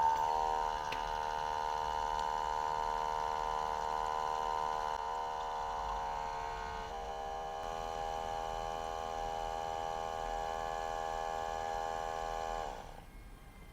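Outin Nano portable espresso machine's electric pump running steadily with a whine during a capsule extraction. Its pitch shifts about seven seconds in, then it winds down and stops on its own near the end as the extraction finishes.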